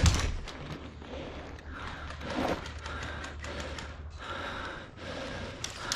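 A knock right at the start as the player brushes the wooden barricade, then the rustle of the player moving, with scattered faint clicks.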